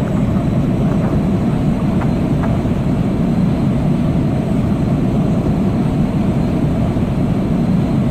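Jet airliner engines running with a loud, steady rumble that neither rises nor falls.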